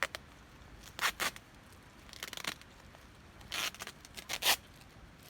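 Packaging being torn open in about four short rips.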